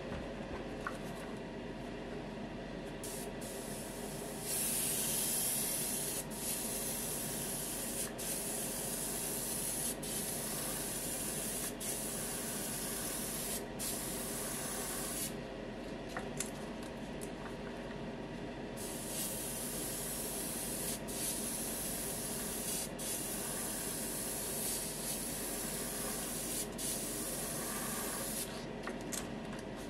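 Airbrush spraying automotive 2K clear coat in long hissing passes, the final wet coat. The hiss comes in about three seconds in. It is broken every second or two by a brief trigger release, pauses for a few seconds near the middle, and stops near the end, over a steady background hum.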